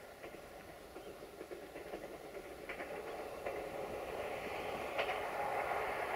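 Siemens Desiro diesel multiple unit approaching on curved track, its running noise growing steadily louder, with scattered sharp clicks of the wheels on the rails.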